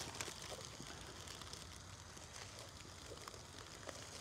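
Faint, sparse taps of a small knife on a thin plastic chopping board as leafy greens are cut, over a low steady hiss.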